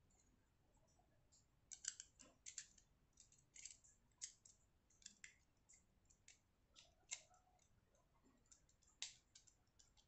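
Faint, irregular light clicks and ticks of a small screwdriver working the retaining screw into a Gomexus aftermarket knob on a baitcasting reel handle. The clicks start about a couple of seconds in.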